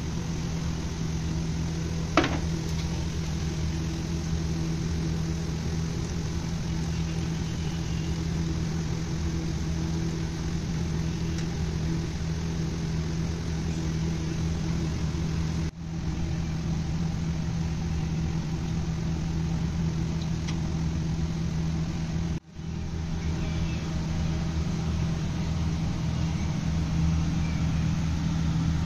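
Doughnuts deep-frying in a commercial fryer: hot oil sizzling under a steady low machine hum. There is a sharp click about two seconds in, and the sound cuts out for a moment twice.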